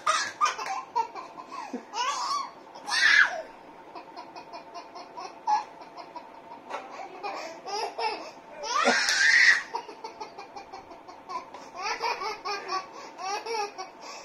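A baby laughing in repeated giggles and belly laughs, between a man's loud playful exclamations. The two loudest bursts come about three and nine seconds in.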